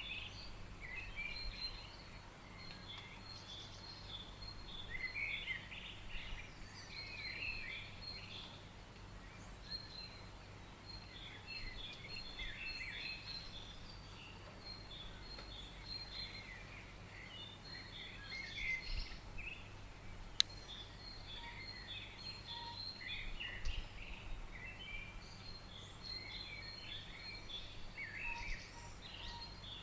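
Small birds chirping and singing on and off over a steady low background hum, with one sharp click about two-thirds of the way through.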